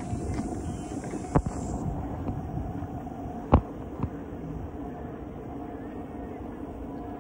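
Low, steady outdoor rumble with a faint hum, broken by three sharp knocks: one about a second and a half in, then two close together around three and a half to four seconds in.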